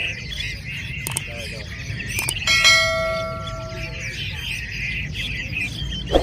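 Many caged Chinese hwamei songbirds singing, a dense chorus of chirps and warbling. About two and a half seconds in, a single metallic clang rings out for about a second and a half.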